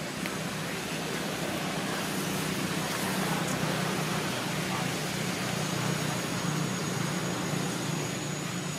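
Steady outdoor background noise: an even rushing hiss over a low hum, with a faint thin high-pitched tone running through it.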